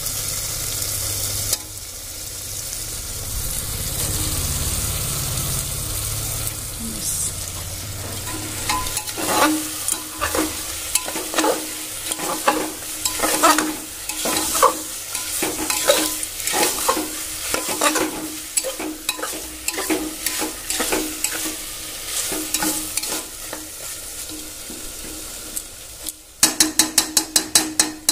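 Chicken pieces sizzling as they fry in oil and masala in an open aluminium pressure cooker, while a metal spoon scrapes and stirs against the pot in repeated strokes, a little under two a second. Near the end the spoon taps rapidly against the pot about ten times.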